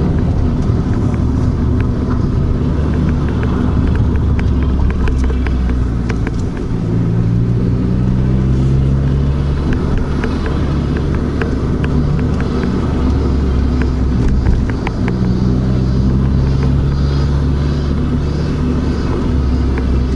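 Suzuki Swift Sport (ZC31S) 1.6-litre four-cylinder engine running with an abnormal noise: a steady hum with many sharp, irregular ticks over it, which the owner takes for a failing part in the belt drive. The engine's pitch steps up briefly twice.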